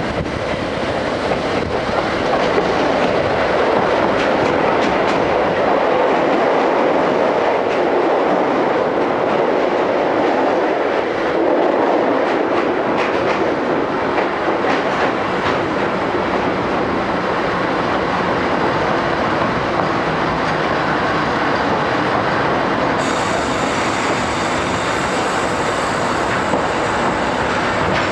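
Old-type passenger coach running along the line, heard from inside the car: a steady rumble of wheels on rails with rail-joint clicks.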